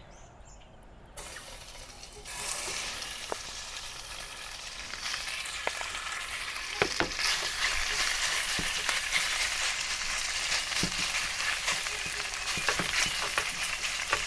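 Marinated lamb pieces sizzling in near-smoking oil in a stainless steel frying pan as they are laid in. The sizzle starts faintly about a second in, jumps up a moment later and keeps getting louder as more pieces go in, with a few sharp clicks through it.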